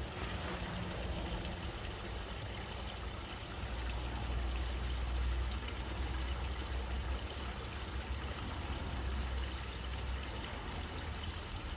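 Water flowing and trickling steadily through a koi fry tank's gravity-fed filter system. A low rumble underlies it between about four and nine seconds in.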